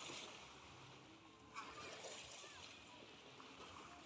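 Faint splashing and sloshing of shallow seawater as feet wade through it and small waves lap at the shore, with one brief, slightly louder splash about one and a half seconds in.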